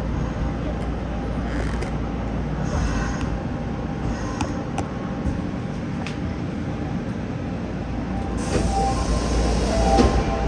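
Nagoya subway 5050-series train standing at a station platform: a steady low hum with a few scattered clicks, then a swell of hissing noise about eight seconds in.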